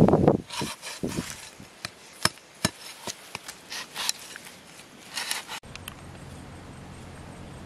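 Machete blade chopping and shaving a green wooden stick: a heavy thud at the start, then a run of sharp chops and short scraping cuts that stop about five and a half seconds in, leaving faint steady outdoor background.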